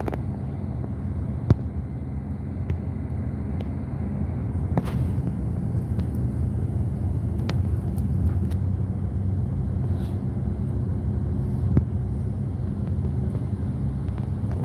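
Intercity coach bus driving, heard from inside the passenger cabin: a steady low rumble of engine and road noise, with a few sharp clicks or rattles.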